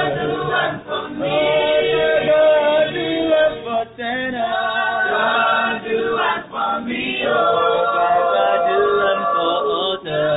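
Mixed group of men and women singing a cappella together in several voices, with no instruments, in held phrases broken by short breaths.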